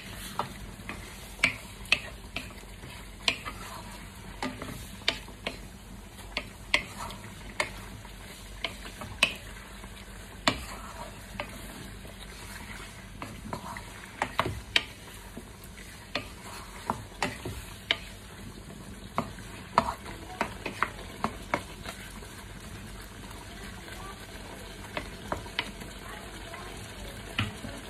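Wooden spoon stirring chicken and pork adobo in a wok, knocking and scraping against the pan in irregular sharp clicks, with a steady sizzle from the pan underneath.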